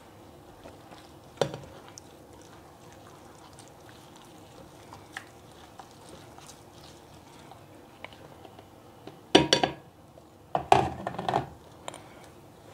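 Hand kneading flour into a soft yeast-free dough in a glass bowl: faint squishing and light clicks, with a sharp knock about a second and a half in. Near the end come two short clusters of louder knocks and clatter from the bowls being handled.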